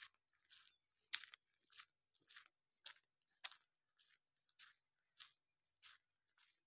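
Faint footsteps of a person walking on dry dirt ground, a steady crunching step about every 0.6 seconds.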